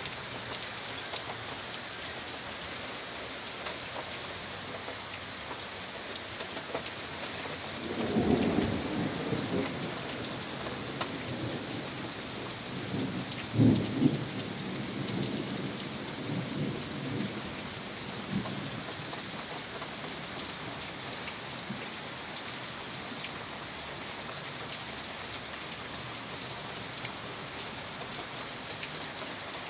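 Steady rain falling on wet pavement and grass, with two rolls of thunder. The first rumbles about eight seconds in; the second, louder one starts sharply about fourteen seconds in and rolls on for a few seconds.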